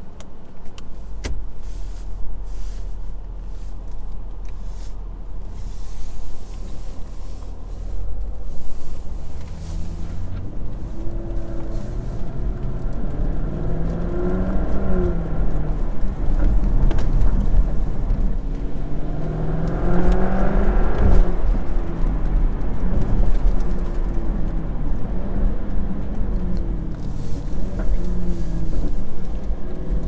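Jaguar F-Type V8 S's supercharged 5.0-litre V8 heard from inside the cabin: a low, steady rumble at light throttle for the first several seconds, then repeated revving as the car accelerates and lifts off, the pitch rising and falling, loudest about twenty seconds in.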